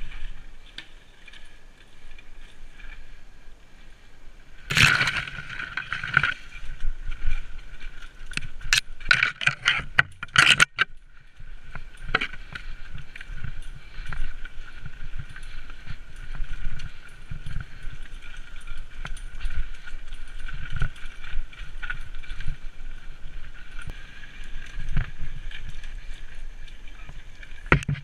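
Mountain bike ridden fast over rock and dirt trail: the bike rattles, with a rumble from the ground and sharp knocks over bumps that are thickest about five to eleven seconds in. A steady high-pitched buzz runs underneath.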